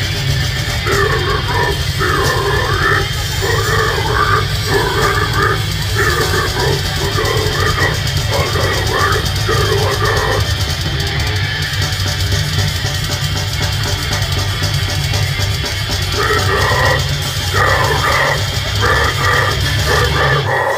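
Death metal band playing loud: heavily distorted guitars and bass over a drum kit, with a riff-like part that drops out for a few seconds midway and comes back near the end.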